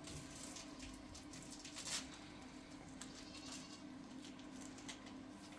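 Quiet room with a steady low hum and a few faint clicks.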